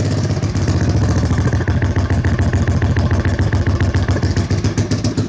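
Honda dirt bike engine running steadily at idle through a straight-pipe exhaust, a fast even patter of firing pulses. It is running on choke with the idle jet not yet set.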